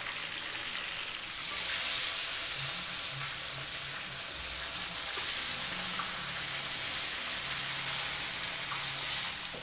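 Two whole scored tilapia frying in about two centimetres of hot corn oil: a steady sizzle of the bubbling oil around the fish, getting a little louder about two seconds in.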